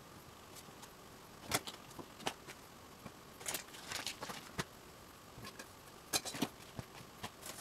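Household items being handled and sorted: scattered light clicks, knocks and rustles, with sharper clatters about a second and a half in, in a cluster around four seconds, and again around six seconds.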